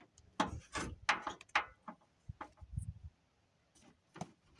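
Hands handling the new door wiring harness and its plastic clips: a quick run of clicks and rustles, a few soft thumps, then one more click near the end.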